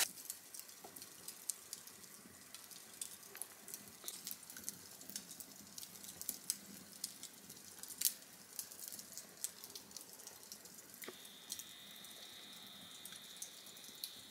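Wood fire burned down to glowing embers, crackling with irregular small pops over a faint hiss. A thin, steady high whistle joins about eleven seconds in.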